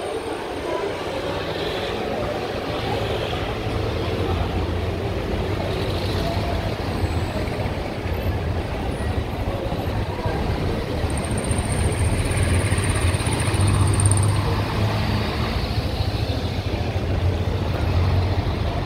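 City street noise with passing motor traffic: a steady low engine hum under a general wash of noise, swelling about twelve to fifteen seconds in as a vehicle draws close.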